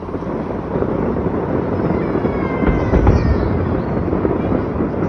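Aerial fireworks going off in a dense run of bangs and crackle, with the heaviest boom about three seconds in.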